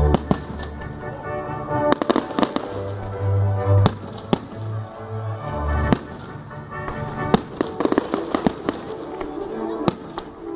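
Fireworks going off in a rapid, irregular string of sharp bangs and crackles, with music playing underneath.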